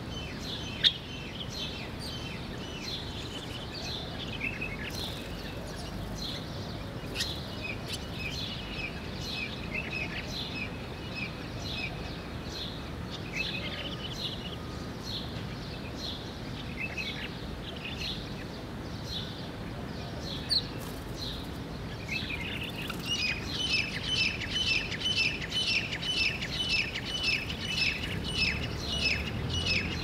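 Small birds chirping over a steady background, with scattered short chirps at first. In the last third the chirps become a rapid repeated run of about three a second. A single sharp click sounds about a second in.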